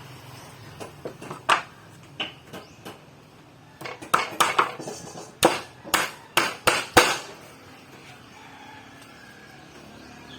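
Irregular knocks and clatter of hard tools and wood being handled, with a busy run of sharp strikes a little past halfway, then quieter. No saw is running.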